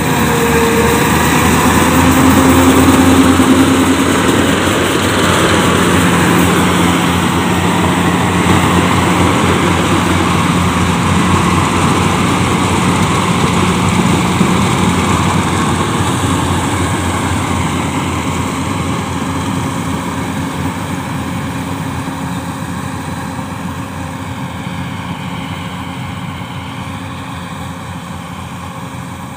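Yanmar AW70V rice combine harvester running as it harvests, its engine and threshing machinery a steady mechanical noise. It is loudest a few seconds in as it passes close, then slowly fades as it moves away down the field.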